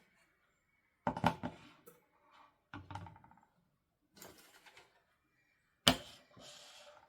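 Doll packaging being handled and unboxed: a series of taps, clicks and rustles in several short bursts, the sharpest click about six seconds in, followed by a brief crinkle.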